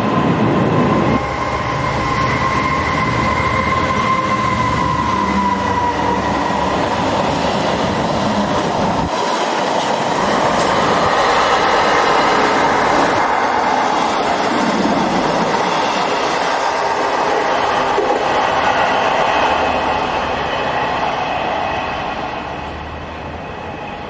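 Class 66 diesel locomotive and its container wagons passing close by, wheels rolling on the rails with a steady high whine. About nine seconds in the sound cuts abruptly to another passing train, which fades near the end.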